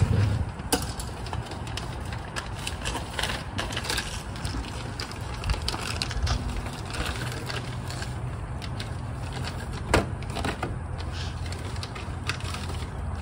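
Thin plastic sheeting crinkling and rustling in the hands as it is wrapped around a metal bar, with irregular crackles throughout and one sharper crackle about ten seconds in.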